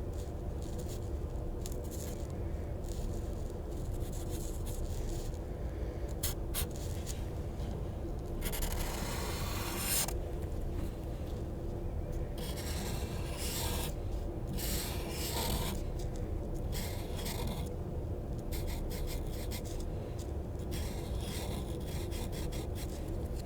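A drawing tool scribbling on paper: scratchy, rubbing strokes in short, irregular spurts, with one longer stroke about nine seconds in, over a steady low background hum.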